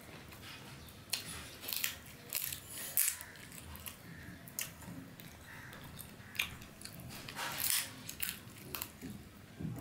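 Close-up eating sounds: a man biting and chewing a piece of food held to his mouth by hand, with irregular clicks and smacks of the mouth several times a second.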